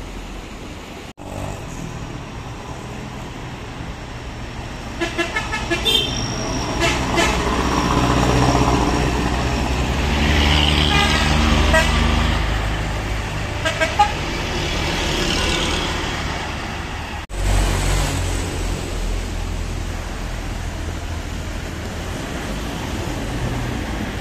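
Heavy diesel buses and trucks passing and pulling hard on the throttle up a mountain road, their engine noise building to its loudest in the middle. Several short horn toots sound over the engines, mostly between about five and fourteen seconds in.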